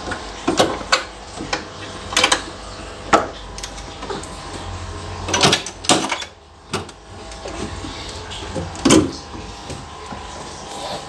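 Metal hasp latches on a wooden cage cabinet being unfastened and its mesh doors pulled open: a series of sharp clacks and knocks, about eight of them.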